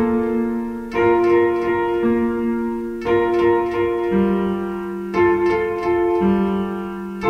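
Instrumental ringtone music on an electric piano-style keyboard: slow sustained chords, a new one struck about once a second over a bass note that changes about every two seconds.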